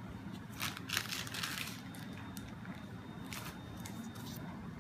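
Brief crinkly rustling twice, about half a second in and again near the end, over a steady low hum.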